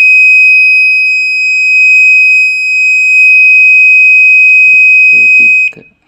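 Electrolux washing machine's control-board buzzer sounding one loud, continuous high-pitched beep that cuts off abruptly near the end.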